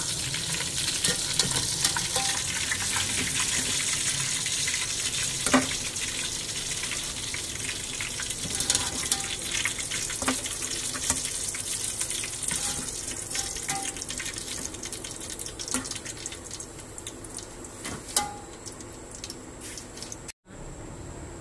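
Chicken koftas frying in hot oil in a metal pot: a steady sizzle with small crackles, and now and then a spoon knocking against the pot as they are lifted out. The sizzle thins out in the second half.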